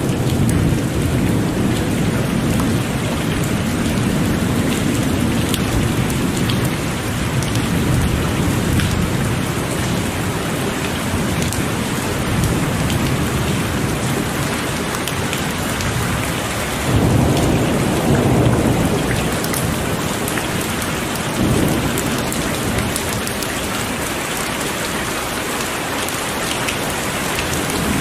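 Heavy rain falling steadily, with rolls of thunder rumbling low underneath; a louder thunder rumble swells up a little past halfway and another shortly after.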